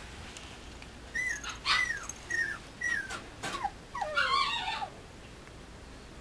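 Mame shiba puppy whimpering: a string of about six short, high whines, each falling in pitch, the last one longer.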